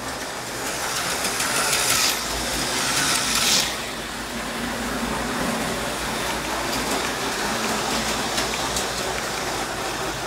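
HO-scale model train, Illinois Central EMD E8 diesel models pulling passenger cars, running along the track with a steady whir. In the first few seconds a louder hissing whir builds up and cuts off sharply after about three and a half seconds.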